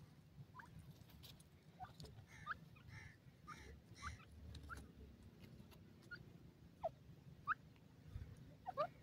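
Young grey francolins (teetar) giving short, soft rising peeps, scattered throughout with a quicker run of them in the middle and a few louder ones near the end, over a faint low rumble.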